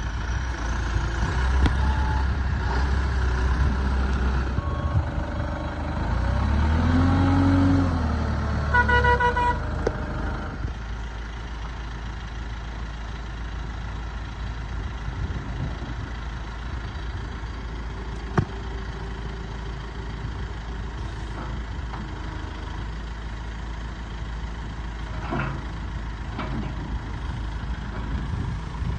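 Diesel engine of a Terex/Fermec 760 backhoe loader running, its speed rising and falling about seven seconds in. A brief horn sounds about nine seconds in. The engine then settles to a steady idle, with a single sharp click about halfway through.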